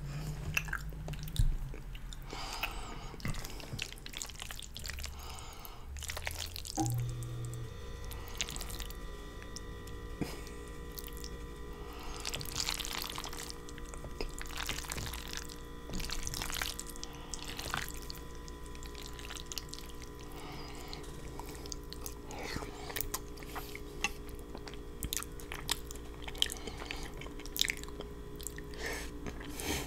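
Close-miked eating sounds of a person chewing creamy fettuccine noodles: wet chewing and smacking with many small clicks, and a fork working the noodles in a glass baking dish.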